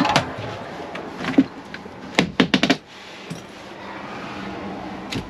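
Boots on the cab step, then sharp clicks and knocks, with a quick run of four or five near the middle, as the oil-check access hatch in a fire engine's engine cover is unlatched and opened. A faint steady hum follows.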